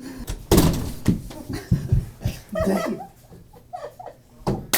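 People laughing in short bursts, with a sharp breathy outburst about half a second in and another near the end.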